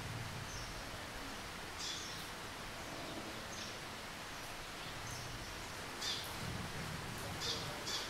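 Eurasian tree sparrows giving a few short, sharp chirps, more often near the end, over a steady background hiss.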